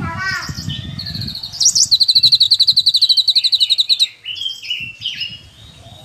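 Cucak kinoi, a caged leafbird, singing. A few chirps lead into a loud, rapid trill from about a second and a half in to about four seconds, followed by softer short whistled notes.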